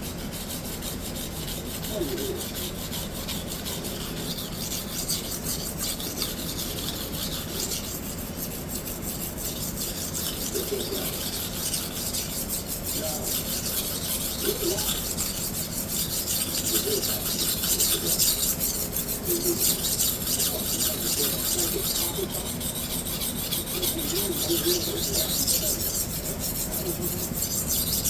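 Hard Japanese-steel knife blade stroked back and forth on a diamond sharpening stone, a continuous scraping that grows somewhat louder in the second half. This is the rough cut of a fresh cutting bevel after the chips have been ground out, removing steel fast.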